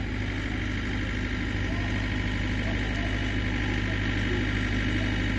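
Steady low drone of an idling engine.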